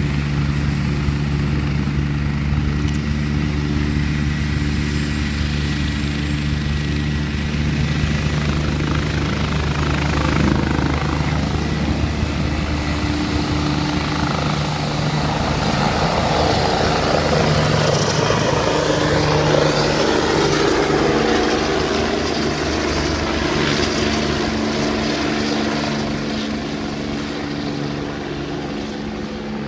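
Police helicopter lifting off: its turbine engine hum and the beat of its rotor run steadily, with the rotor rush growing louder about halfway through and then fading a little as the helicopter climbs away.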